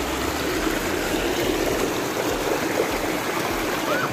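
Shallow mountain stream flowing and splashing over rocks, a steady wash of water noise.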